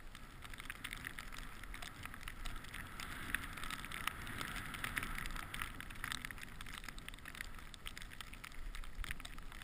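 Skis running through deep powder snow: a steady hissing rush full of small crackles, a little louder about three to five seconds in.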